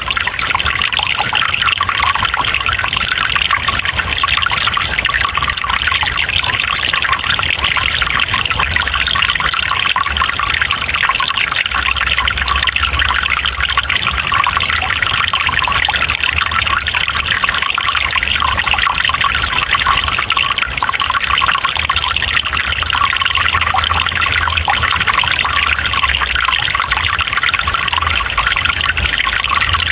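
Water trickling and splashing steadily, an unbroken rushing hiss with a low rumble beneath it.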